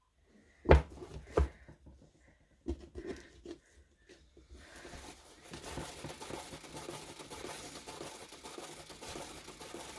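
Two sharp knocks and a few lighter taps as the painted tile on its spinner is handled. From about halfway in, a steady rustling whir as the tile spins on a paint spinner.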